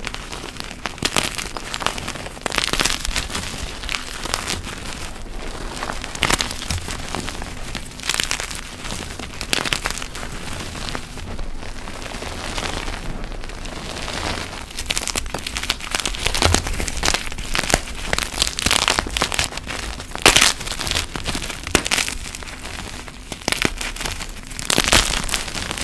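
Deep-dyed gym chalk blocks being crushed: continuous crunching and crumbling, with louder sharp cracks every few seconds.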